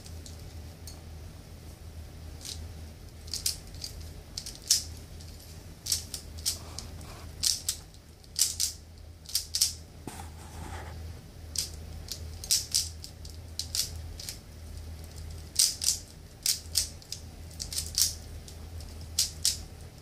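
Rubik's cube being twisted in the hands: quick, irregular clusters of sharp plastic clicks and rattles as the layers turn, with short pauses between moves, over a steady low hum.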